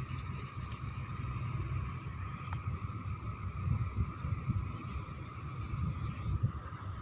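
Combine harvester running steadily: a deep engine rumble under a constant high whine from the machinery.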